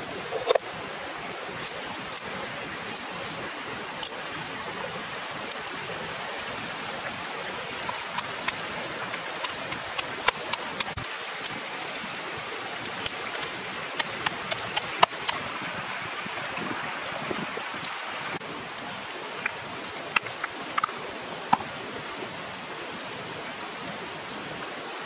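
A steady rushing hiss throughout, with scattered sharp taps and knocks from food preparation: a knife chopping on a wooden board and a pestle striking a stone mortar.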